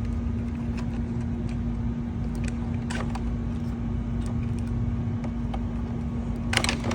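Scattered light clicks and knocks as a side-mirror glass is handled and its heater wire connectors are pulled off, with a louder rattle of clicks near the end. Under them runs a steady low rumble with a constant hum.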